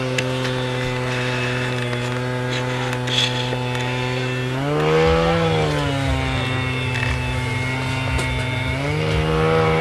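A small engine running at a steady idle, briefly revved up and back down about halfway through, then raised again near the end.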